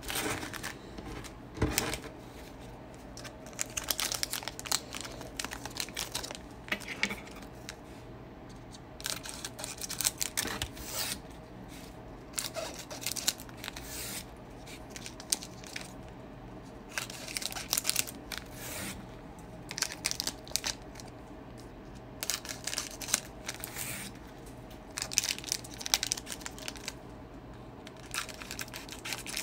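Foil-wrapped basketball card packs crinkling as they are handled and torn open, in irregular crisp bursts every second or two with short quiet gaps between.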